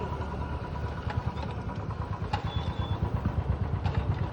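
A boat's engine running with a steady low throb, growing louder toward the end.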